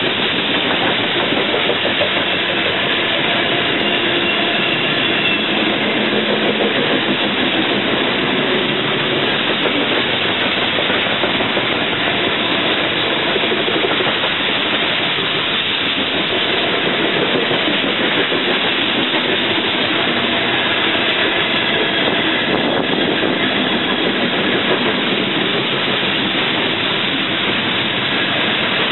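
Freight train of covered hopper cars rolling past at speed, a steady, unbroken noise of wheels on rail.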